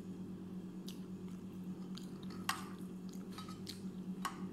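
Close-up mouth sounds of eating rice by hand: chewing with a few short wet smacks and clicks, the loudest about halfway through. A steady low hum runs underneath.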